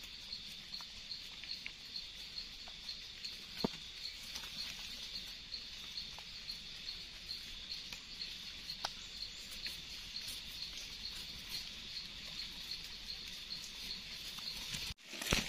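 An insect chirping in a steady, evenly pulsing high trill. Over it come faint scattered ticks and scrapes of a knife blade scraping soil off the base of freshly picked Amanita mushrooms.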